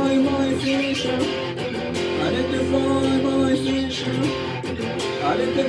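Electric guitar strummed in sustained chords, with a man singing along.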